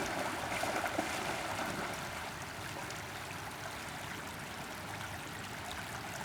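River water flowing in a steady rush, a little louder in the first two seconds.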